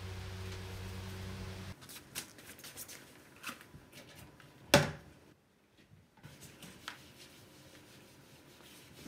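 A steady low hum that cuts off abruptly after about two seconds, then gloved hands wiping kitchen cabinet doors with a cloth: soft rubbing and light taps, with one sharp knock about five seconds in.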